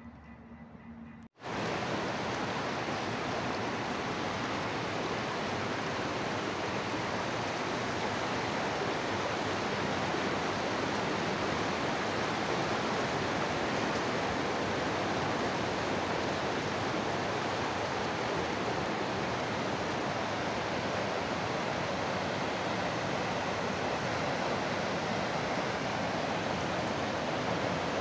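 Steady rush of river water tumbling over a weir and waterfall, starting abruptly just over a second in.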